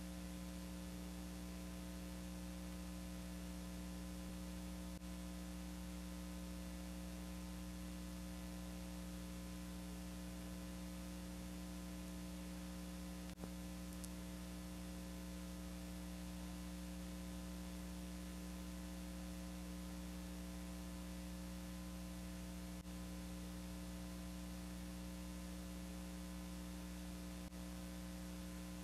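Steady electrical mains hum with tape hiss, unchanging throughout, with a few faint clicks; no other sound.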